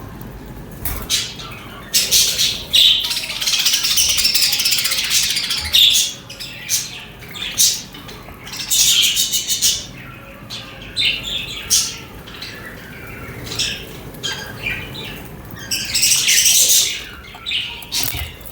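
Budgerigars chirping and chattering: a long stretch of dense, rapid high chatter early on, then shorter bursts with quieter gaps between.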